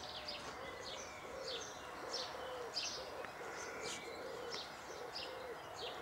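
Small birds chirping in the trees with many short, high calls, and underneath them a soft, low call repeated steadily about two to three times a second.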